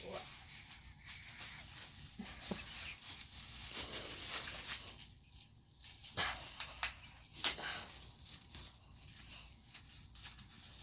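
Gift packaging crinkling and tearing as it is opened, in irregular crackles and rustles with a few sharper snaps.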